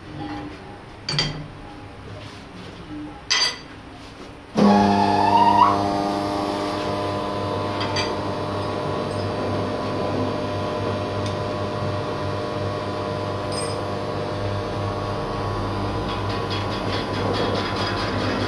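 A few short metal clinks, then about four and a half seconds in a metal lathe starts up with a briefly rising whine as it brings a truck wheel rim up to speed, and runs on with a steady hum and whine.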